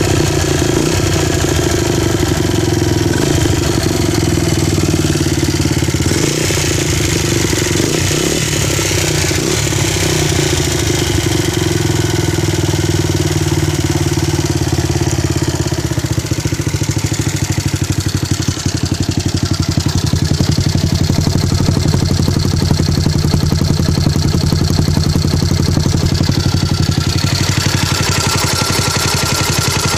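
Honda Sonic 125 motorcycle engine idling steadily, getting brighter and sharper near the end.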